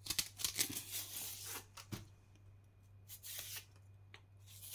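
Kitchen knife peeling strips of stringy skin off rhubarb stalks: a run of short tearing, scraping sounds, dense in the first two seconds, then a few more later on, over a faint steady low hum.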